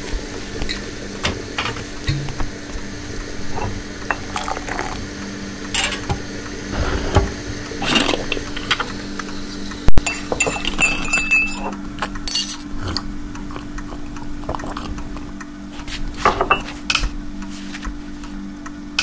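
Kitchen clatter: dishes and cutlery clinking in short scattered knocks over a steady low hum, with one sharp, very loud hit about halfway through.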